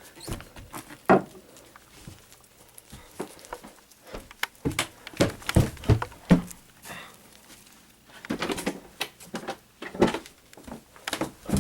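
A run of irregular knocks, taps and shuffles in a small room, with louder thumps clustered about halfway through and again near the end.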